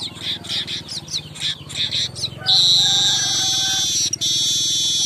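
Manyar (weaver bird) song: a quick series of short falling chirps, then a long, loud buzzing trill that breaks briefly twice. A steady low hum runs underneath.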